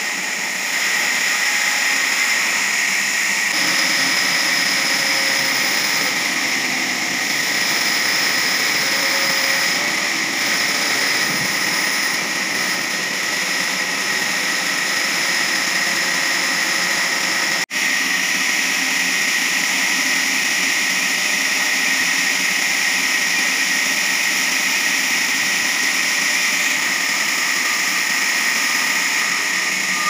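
Large horizontal band sawmill running and sawing a log, a steady mechanical noise with a high-pitched whine from the blade. The sound drops out for an instant about two-thirds of the way through.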